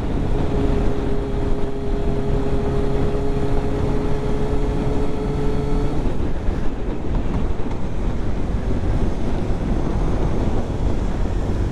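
Yamaha YZF600 motorcycle's inline-four engine running at steady revs under a heavy rush of wind on the microphone. The steady engine tone drops away about six seconds in, leaving mostly wind noise.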